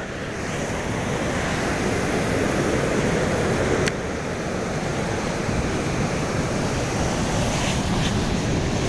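Ocean surf breaking on the beach, a steady rush with wind on the microphone. A single sharp click about four seconds in.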